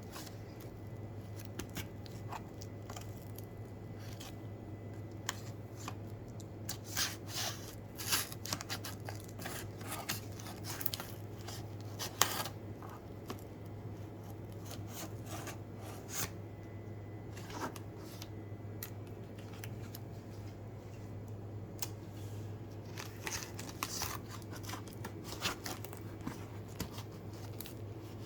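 A speaker's box and packaging being opened by hand: irregular snips, crackles and clicks of cardboard and wrapping, busiest in the middle and again near the end, over a steady low hum.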